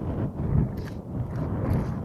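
Strong, gusty wind buffeting the microphone, with a couple of short clicks.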